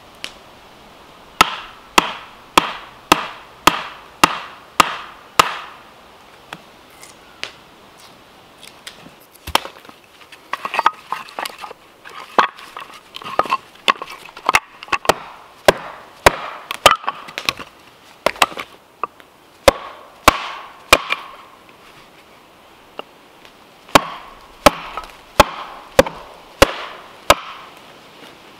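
Wooden mallet striking the back of a hatchet, driving it through firewood to split off thin boards: runs of sharp wooden knocks a little under two a second, with a busier cluster of smaller knocks and cracks in the middle.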